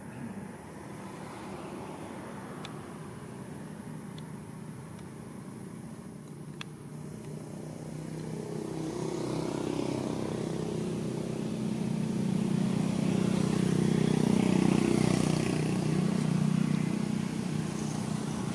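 A vehicle engine passing by: a low hum that grows louder from about halfway through, is loudest about three-quarters of the way in, then eases off.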